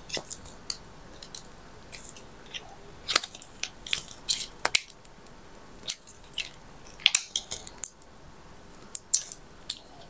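Scissors pushed and twisted through a thin piece of cut plastic bottle to pierce holes, with irregular crinkles, snips and clicks of the plastic.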